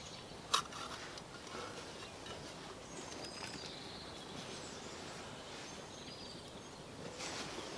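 Quiet outdoor background with faint, short bird chirps, and a single sharp click about half a second in. A soft rustle near the end.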